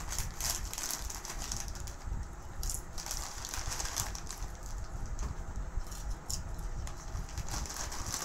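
Foil crisp packets crinkling in irregular short bursts as hands dig into them for chips, over a low steady hum.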